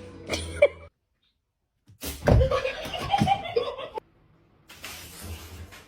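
A person laughing, with a heavy thump as it begins.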